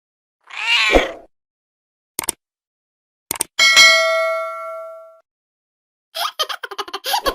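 A cat meows once, the call falling in pitch. Two short clicks follow, then a bell-like ding that rings out and fades over about a second and a half. Near the end a quick fluttering run of pulses begins.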